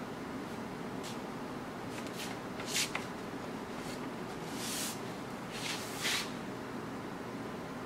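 Handling noise from a wooden table being turned over by hand and set on its legs: a few brief, soft rustles over a steady background hum, with no distinct knock.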